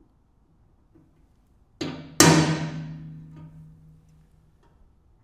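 A hammer striking a punch set in a punch mark on a snowblower's steel side plate: a light tap, then a hard blow about two seconds in that rings and dies away over a second or so. A few faint clicks follow as the punch is moved between holes.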